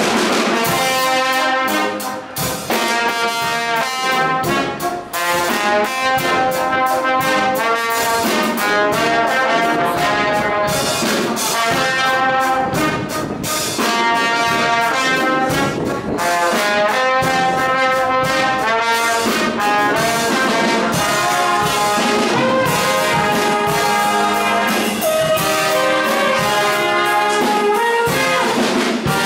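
Small brass band playing a tune, with trumpets carrying sustained melody notes. The music starts abruptly and runs on without a break.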